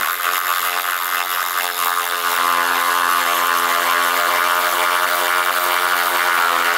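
Ryobi P344 18-volt cordless 3/8-inch ratchet running under load as it drives a lag screw down into wood: a steady motor-and-gear whine.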